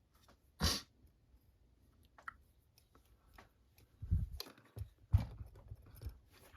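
Lishi SC1 pick being worked in the keyway of a brass Abus padlock: scattered small metallic clicks and a few heavier knocks. The sharpest click comes just under a second in, with a cluster of knocks about two-thirds of the way through.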